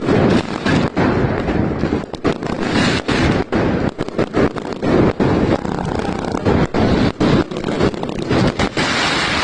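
Many fireworks going off at once: a continuous barrage of overlapping bangs and crackle with no pause.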